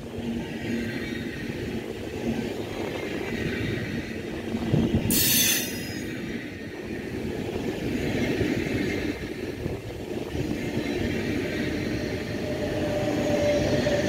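A DB Intercity 2 double-deck train passing close by, with a steady rumble of wheels on rail and a brief, loud, high-pitched burst about five seconds in. A humming tone grows near the end as the locomotive at its rear goes past.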